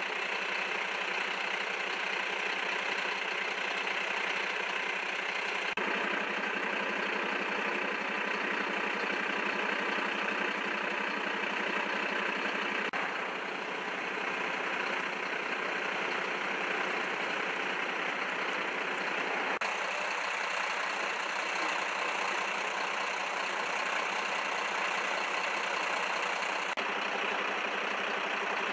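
A steady engine idling hum with a constant low drone, and the background noise shifting slightly a few times.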